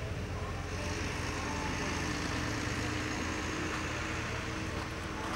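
Steady low hum of an idling engine, with a faint steady tone held over it.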